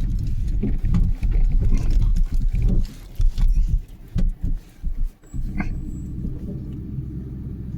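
Road and wind noise from a car on the move: a loud, uneven low rumble with small knocks, which settles into a steadier low hum about five seconds in.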